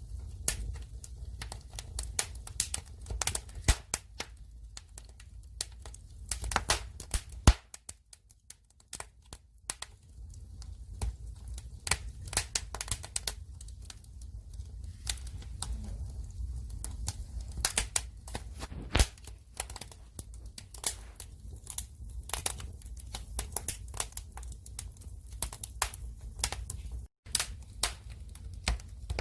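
Firewood burning, crackling and popping in irregular sharp snaps over a low rumble, with a brief quieter spell about eight seconds in.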